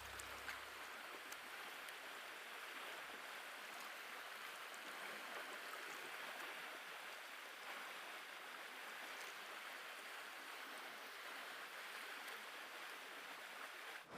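Steady rush of flowing stream water, with a few faint scattered clicks.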